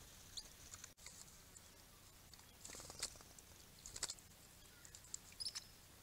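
Swift parrots at a small pool: a few soft pattering and splashing sounds, loudest about three and four seconds in, with brief high chirps scattered through, the clearest just before the end. Faint overall.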